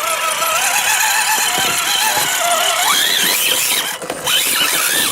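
RC rock crawler's electric motor and geared drivetrain whining under throttle, the pitch wavering and climbing about three seconds in, with a brief drop-out near four seconds.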